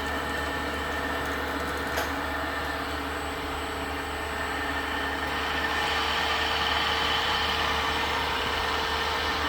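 Work head of a Karstens OD grinder running under its variable-speed drive, a steady machine hum with a short click about two seconds in. About halfway through, a higher whine joins and the sound grows slightly louder.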